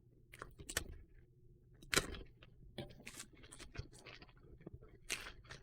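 A package being opened by hand: irregular rustling, snapping and scraping of packaging, loudest about two seconds in.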